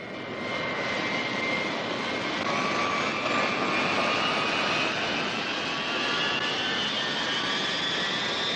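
Jet engines of the presidential Boeing VC-137C "The Spirit of '76" running: a steady rush with a high whine that rises slowly in pitch.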